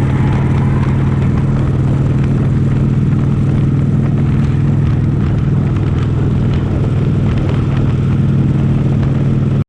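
Motor vehicle engine running at a steady cruising speed: a constant low drone with road and wind noise.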